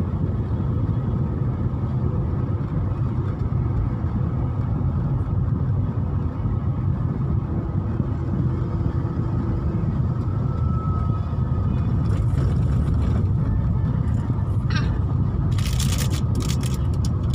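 Steady road and engine rumble of a moving car heard from inside its cabin, with a cluster of sharp clicks near the end.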